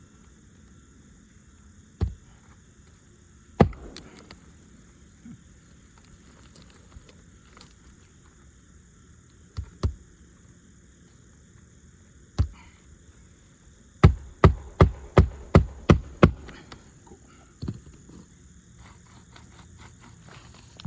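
Hammer striking nails into an asphalt shingle roof: a few separate blows, then a quick run of about eight blows, roughly four a second, about two-thirds of the way in. This is the sound of nailing down a replacement shingle.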